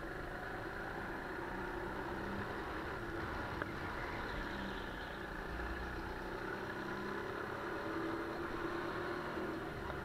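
Sodi GT5R kart's 200 cc Honda single-cylinder four-stroke engine running at speed under the seat, heard from onboard. Its note rises and falls slightly through the corners, with one short sharp click about three and a half seconds in.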